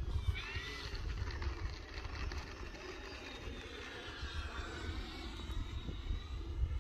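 Electric RC model Focke-Wulf FW-190 taking off: its electric motor and propeller whine, swelling and then thinning to a faint steady tone as it climbs away. Wind gusts rumble heavily on the microphone throughout.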